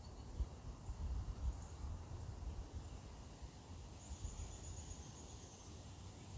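Quiet outdoor ambience: an uneven low rumble of wind on the microphone, with a faint high trill from about four seconds in.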